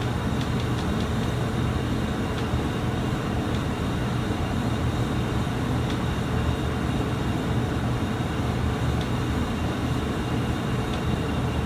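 Steady low mechanical rumble and hum of a machine running, even throughout.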